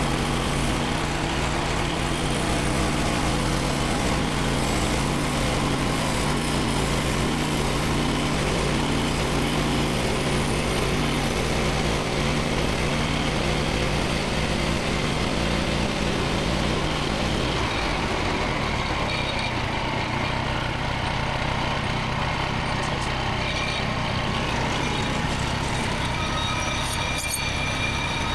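Petrol engine of a Frontier OS27 portable bandsaw sawmill running steadily, its note changing about two-thirds of the way through.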